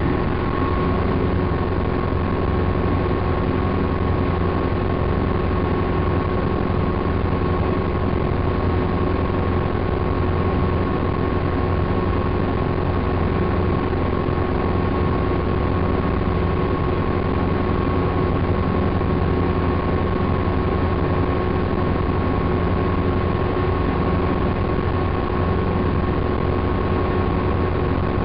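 Helicopter in steady flight heard from inside the cabin: a constant loud rumble of rotor and engine with a couple of steady whining tones over it, unchanging throughout.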